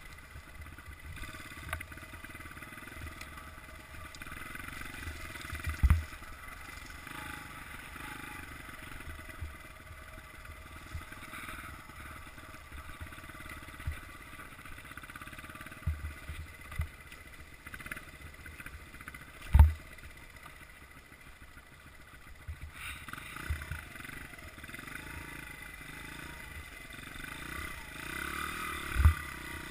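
Honda CRF100F dirt bike's small air-cooled four-stroke single-cylinder engine running while riding, with several short low thumps, the loudest about two-thirds of the way through and another near the end.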